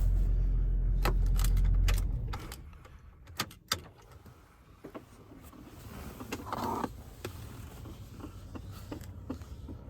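A vehicle's engine running with a low steady rumble that cuts out about two seconds in, followed by a handful of sharp clicks and small knocks.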